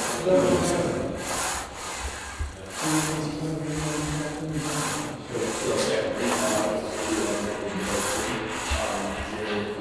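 A lifter breathing hard and straining through repeated bench press reps: sharp breaths about once a second, with low held groans in between.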